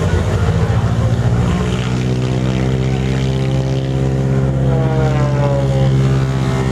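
North American Harvard's Pratt & Whitney R-1340 Wasp nine-cylinder radial engine running at low power as the aircraft taxis. It is rough for the first couple of seconds, then settles into a steady, even drone.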